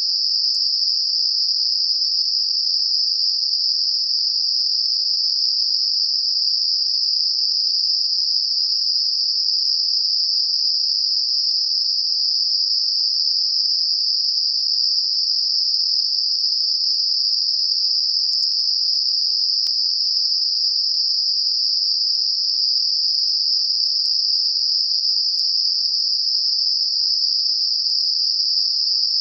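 Synthetic Gaussian narrow-band noise centred on 5 kHz, a tinnitus masker: a steady, high-pitched hiss with no change in level or pitch.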